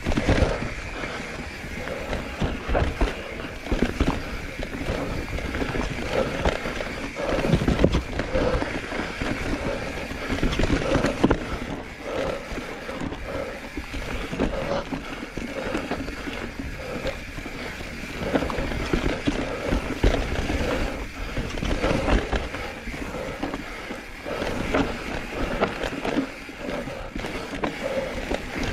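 Mountain bike riding a rough, rocky trail: continuous tyre rumble and crunch over stones and roots, with a constant run of knocks and rattles from the bike's chain and frame, heard close from a mounted action camera.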